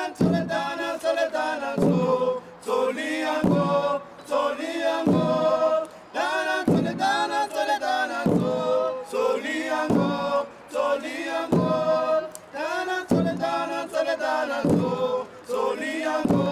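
A group of men chanting together without instruments, in short repeated phrases that each start with a sharp accent about every second and a half.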